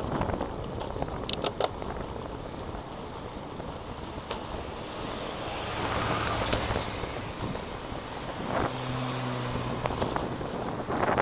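Wind rushing over the microphone of a bike-mounted camera while riding, over tyre and road noise, with a few sharp clicks. A car overtakes about six seconds in, and a low engine hum carries through the last few seconds.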